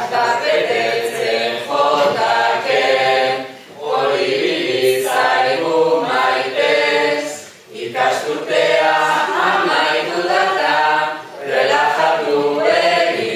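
A group of voices singing koplak (Basque sung verses) together. They sing in lines of three to four seconds, with short breath pauses between them.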